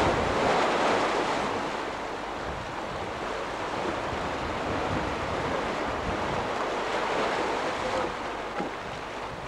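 Sea waves breaking against shoreline rocks, loudest in the first second or so, then settling into a steadier wash of surf.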